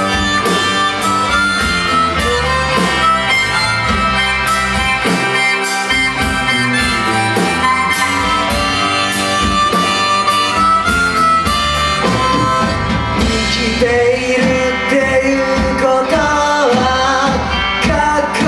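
Harmonica solo played into a vocal mic over a live rock band of electric guitar, electric bass and drums, with a steady drum beat.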